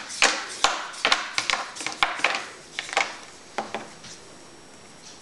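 Quick, irregular clicks and scuffs from handling a small LED weapon light as its back cap and switch are worked, dying away about four seconds in.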